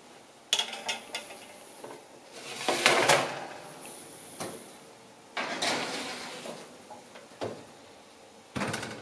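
Kitchen handling of a metal baking sheet: a few light clicks of utensils on the pan, two longer scraping rasps as the sheet slides onto the oven rack, and a knock near the end as the oven door shuts.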